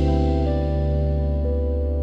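Instrumental lo-fi music: held keyboard chords with no drums, the notes shifting a couple of times.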